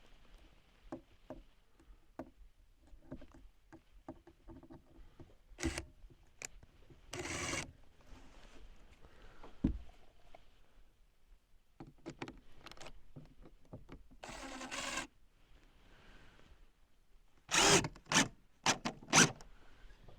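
Scattered knocks and clatter of wooden trim pieces being handled and fitted, with two louder noises of about half a second each, and a cluster of sharp, louder knocks near the end.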